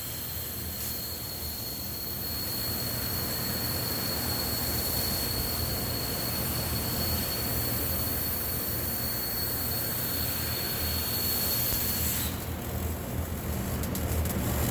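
Pulse MIG welding arc buzzing and hissing steadily inside a 24-inch steel vessel, with a thin high whine over it. The whine stops about twelve seconds in and gives way to rapid crackling near the end.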